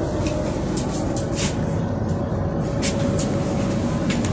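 Steady low rumble inside an LHB railway passenger coach, with a faint steady hum and scattered clicks and knocks.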